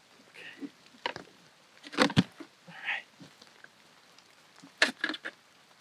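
A hard equipment case being opened and a drone LiDAR sensor lifted out of it: scattered sharp clicks and knocks, bunched about two seconds in and again near the end, with a few soft rustles between.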